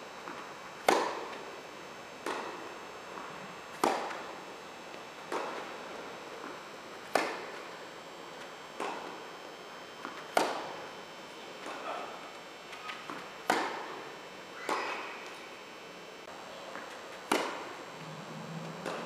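Tennis rally: balls struck by rackets and bouncing on the court, a sharp pop about every second and a half, the loudest every three seconds or so, each echoing through a large indoor hall.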